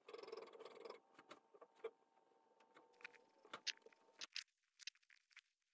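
Near silence, with a faint steady hum for the first second and then a few faint, scattered clicks and taps of hands working at a 3D printer's frame.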